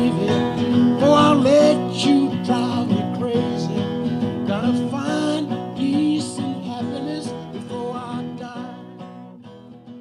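Background music: a country song with strummed acoustic guitar, fading out toward the end.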